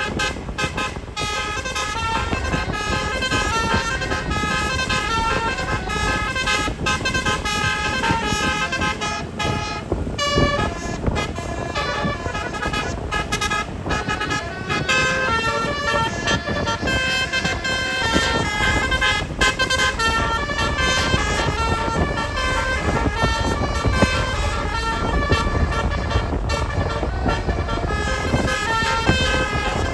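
Tourist bus telolet horns, multi-tone air horns playing a fast tune of short stepped notes, with no break, over a steady low rumble.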